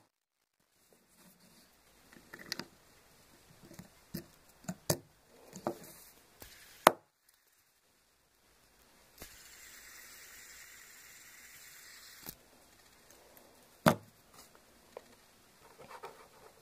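Clicks and knocks of hard plastic as a three-lobed plastic fidget spinner with steel ball bearings is handled and its centre cap pressed on. About halfway through comes a steady whir of the spinning bearing for about three seconds that cuts off suddenly, then one sharp knock and a few small ticks.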